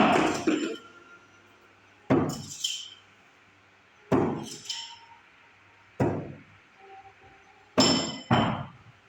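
Thrown metal objects striking a target: six sharp impacts, each with a short metallic ring, coming about every two seconds, the last two half a second apart.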